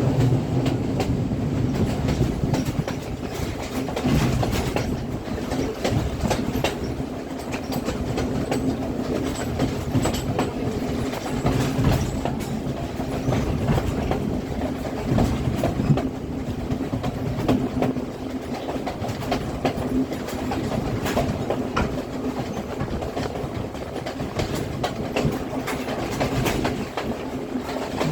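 Passenger train running along the line: wheels clicking over the rails and a steady rumble with a constant low hum.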